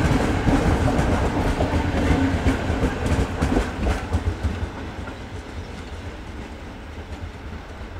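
Departing diesel-hauled passenger train of double-deck coaches rolling past, its wheels clicking over the rail joints. The sound fades away about four to five seconds in as the last coach moves off down the line.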